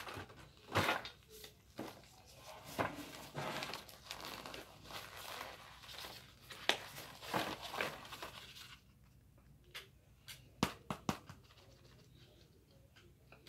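Paper-and-cardboard box of oven-baked cornstarch being torn open and peeled off, with the crunchy starch chunks breaking apart and dropping into a metal pan. The tearing and crackling runs for most of the first nine seconds, and a few sharp clicks come near the end.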